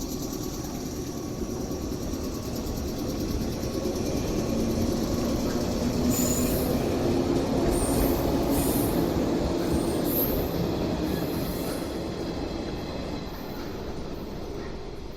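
A train passing close by, getting louder to a peak about eight seconds in and then fading away, with short high-pitched wheel squeals while it is nearest.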